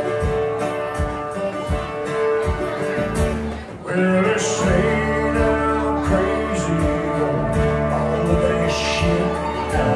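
Live country band playing with guitar and steady drum beats. About four seconds in the music drops briefly, then the full band comes back in louder with bass.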